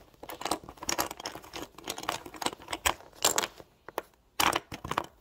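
Small plastic LEGO bricks clicking and clattering in quick, irregular clicks, with louder clusters about three seconds in and near the end.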